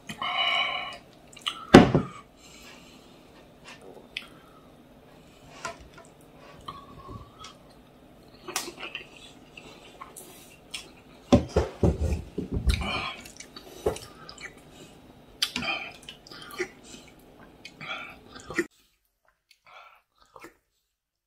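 Eating sounds of a person at a meal of braised oxtail, rice and soup: chewing and lip-smacking, with scattered clicks of a spoon against bowls. A sharp knock about two seconds in is the loudest sound, and there is a denser run of louder noises about halfway through.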